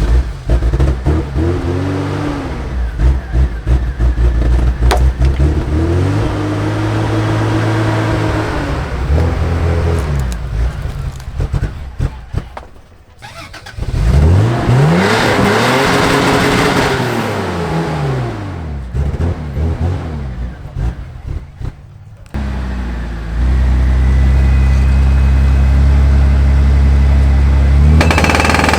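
Off-road 4WD engines revving hard, the engine pitch climbing and dropping again several times. The sound breaks off abruptly twice as one clip cuts to the next, and ends with a steadier, loud run of engine noise.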